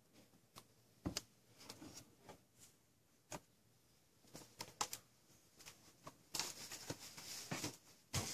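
Quiet handling noise: a few light clicks and knocks of a plastic dash bezel and tablet being moved by hand, then a stretch of rustling near the end.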